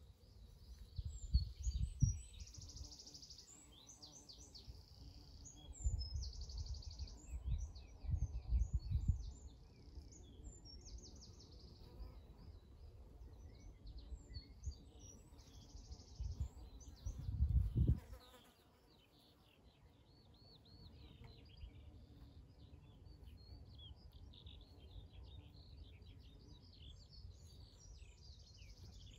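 Several small songbirds singing at once, with many short high chirps and blocks of rapid trills. Loud low rumbles come and go three times in the first part and stop about eighteen seconds in.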